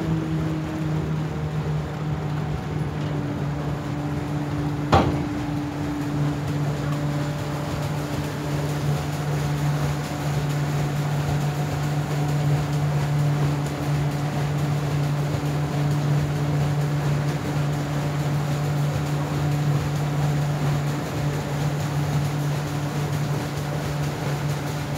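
River ferry's engine running steadily with a low, even hum while the ferry crosses the river. A single sharp knock sounds about five seconds in.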